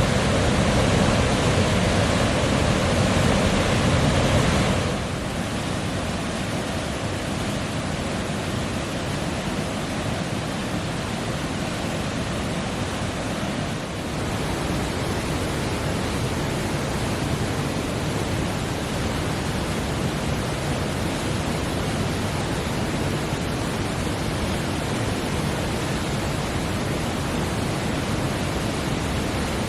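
Mountain creek water rushing over rocks in a steady, even roar. It is louder and fuller for the first five seconds or so, then settles a little quieter and stays steady.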